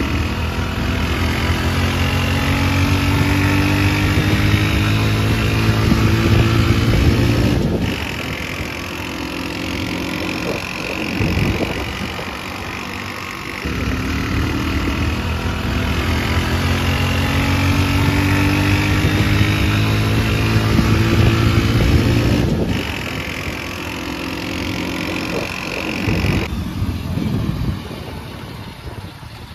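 Hero Honda CD100's 100 cc single-cylinder four-stroke engine running steadily while pulling a cargo trolley loaded with about 900 kg of cement bags. The engine note swells and fades as the bike passes, with a few abrupt jumps in level.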